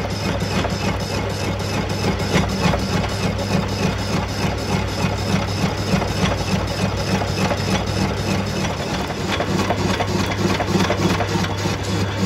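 Metal lathe running and turning a disc harrow hub, the cutting tool taking metal off its outside: a steady low hum with a fast, even clatter.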